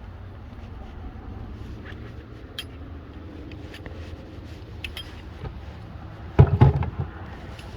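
Light metallic clinks and rattles of a grappling hook and its line being handled, over a steady low rumble, with one loud heavy thump about six and a half seconds in.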